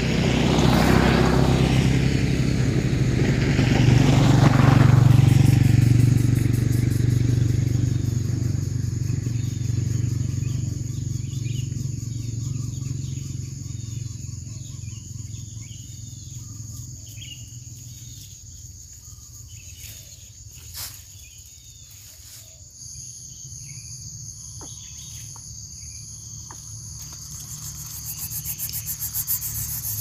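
A motor vehicle passing, its engine hum swelling twice in the first few seconds and then fading away. Faint short chirps follow in the quieter second half, and a rapid pulsing sound rises near the end.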